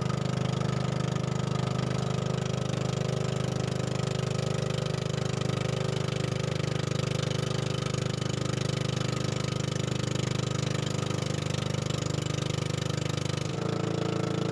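Engine of a small motorized outrigger fishing boat running steadily under way, a constant low drone. Its note shifts slightly near the end.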